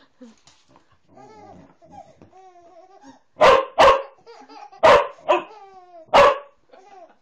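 A dog barking: five loud, sharp barks in two quick pairs and then one more, starting about halfway through. Between the barks a baby babbles and laughs.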